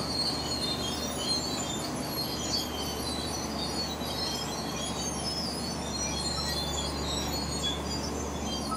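BEML D155A crawler dozer's Cummins KT1150 six-cylinder diesel running steadily, with many short high squeaks and rattling from its steel tracks as it crawls along.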